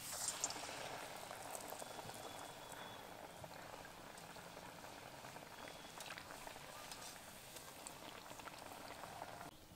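Battered raw-mango chops deep-frying in very hot vegetable oil in a karai: a dense, steady sizzle and crackle of oil. It sets in suddenly, is loudest in the first moment, and cuts off abruptly near the end.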